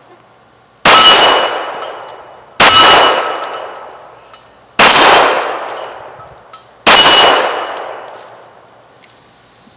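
Four pistol shots from a Springfield Range Officer 1911, about two seconds apart, each answered by the ring of a steel plate target being hit. Each shot and its ringing die away over a second or more.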